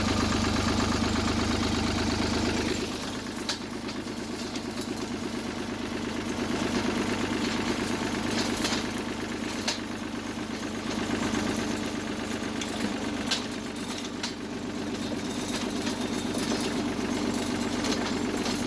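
Engine running steadily while pulling a roller crimper over a field, with a heavier low rumble for the first few seconds and a few sharp clanks scattered through.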